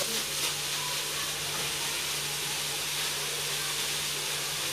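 Steady hissing of pots cooking over a lit gas stove, with a low steady hum underneath.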